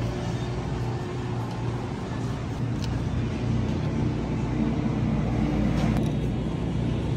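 Steady low rumble of supermarket background noise, without speech.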